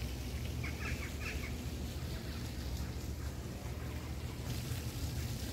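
Steady low wind rumble on the microphone, with two short bird chirps about a second in.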